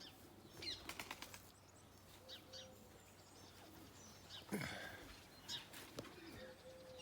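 Faint wing flaps of homing pigeons flying around the loft, with scattered faint bird chirps.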